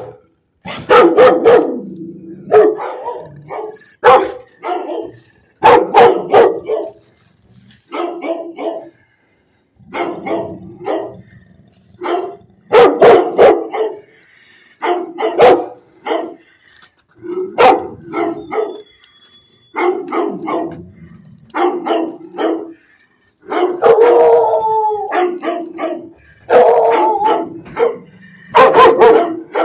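Dogs barking over and over in a shelter kennel, roughly one bark or cluster of barks a second. About two-thirds of the way through comes a longer, howl-like call.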